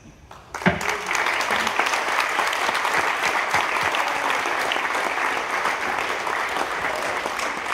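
Audience applauding. It starts suddenly about half a second in and continues steadily.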